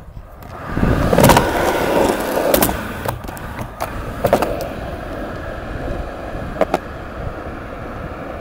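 Skateboard rolling down a ramp and out across concrete. Loud wheel rumble starts about a second in and is loudest for the next two seconds, then settles to a steadier roll. Sharp clacks come four times as the wheels cross seams and metal plates.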